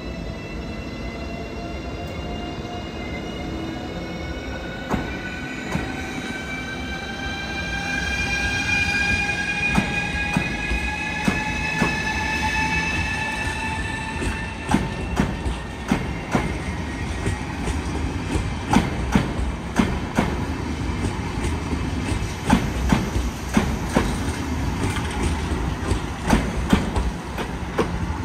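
ES2G Lastochka electric multiple unit pulling away: a whine of several tones climbs steadily in pitch as it accelerates. From about ten seconds in, the wheels click over the rail joints, the clicks coming faster as it gathers speed.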